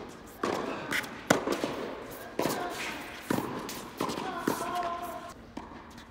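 Tennis ball being hit back and forth with racquets in a fast rally, a run of sharp pops about half a second to a second apart, each echoing in a large indoor tennis hall.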